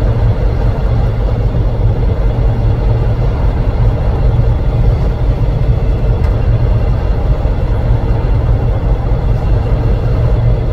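Freight train's container and tank wagons rolling past at close range with a loud, steady low rumble.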